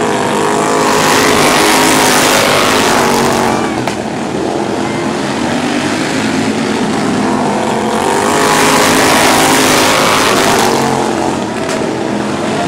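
A pack of outlaw-class racing lawn mower engines running hard, their pitch wavering as the drivers work the throttles. The sound swells louder twice as the pack comes round and fades between passes.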